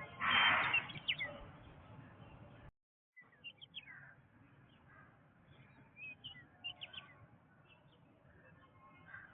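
Jungle ambience of several birds chirping and calling in short, quick notes over a low background hiss. A loud rushing noise in the first second is the loudest thing, and the sound drops out completely for about half a second near three seconds in, where the recording is spliced.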